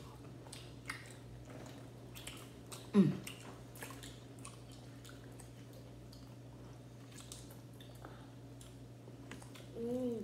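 Close-up chewing and biting of roasted chicken drumsticks: wet smacking and small clicks from mouths and fingers. A brief falling vocal sound stands out about three seconds in, and a short hummed "mm" comes near the end.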